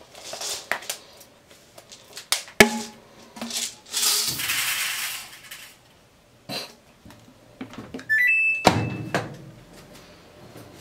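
Scent beads poured from a plastic bottle into a top-loading washing machine, a hissing rattle lasting about a second, after a sharp click of the bottle's cap. Near the end the washer's control panel plays a short rising run of beeps, followed by a thud as the glass lid shuts.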